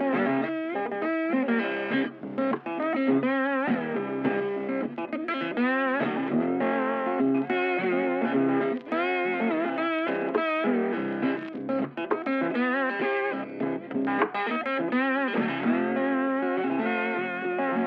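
Background music led by an electric guitar, with bending notes and a steady level.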